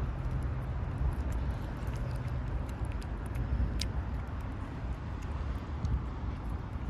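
Steady low outdoor rumble with a few faint clicks, one sharper click about four seconds in.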